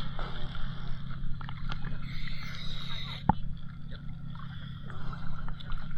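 Dive boat's engine running with a steady low drone, and a single sharp click about three seconds in.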